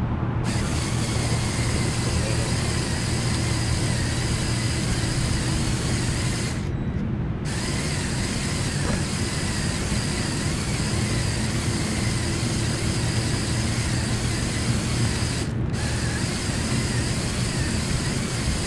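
Two LEGO Power Functions L-motors and their reduction gearing whining steadily, heard close up from on board the RC car as it drives through grass. The high whine drops out briefly twice.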